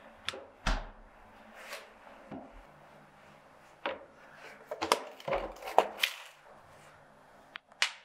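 Kitchen handling sounds: a freezer door opening with a low thump, then a plastic food container set down on the counter and its snap-on lid pried off in a quick run of clicks and knocks.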